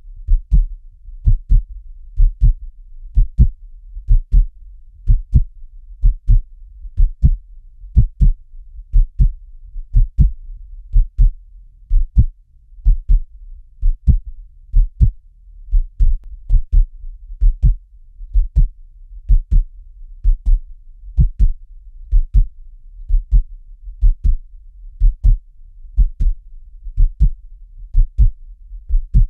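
Steady heartbeat: a lub-dub pair of low thumps about once a second, some 60 beats a minute, over a low hum between beats.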